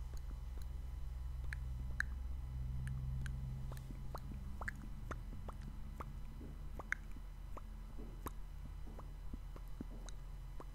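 Close-miked mouth sounds: scattered wet clicks and lip smacks, a few a second at an uneven pace, over a low steady hum.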